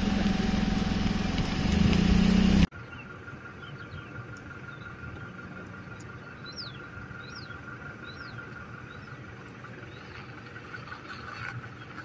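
A vehicle engine running close by, cut off abruptly a few seconds in. It gives way to quieter open-air ambience with a steady high drone and a few short, falling bird whistles around the middle.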